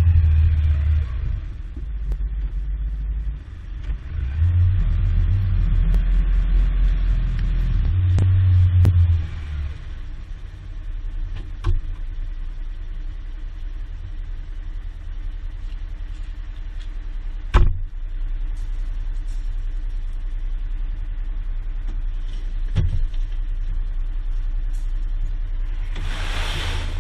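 An engine running with a heavy low rumble, louder in the first nine seconds and then steadier, with a few sharp knocks, the loudest just past the middle, and a short hiss near the end.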